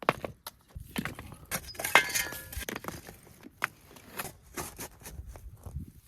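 Footsteps on sand with irregular clicks and knocks, and a short metallic jingle about two seconds in.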